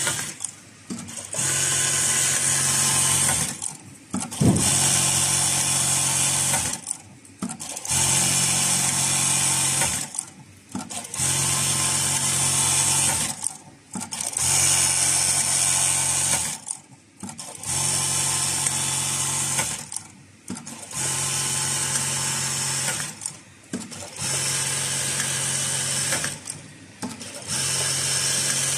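ZOJE buttonhole sewing machine stitching buttonholes one after another: about nine cycles, each a couple of seconds of fast, steady stitching followed by a short break before the next. A sharp clack about four seconds in.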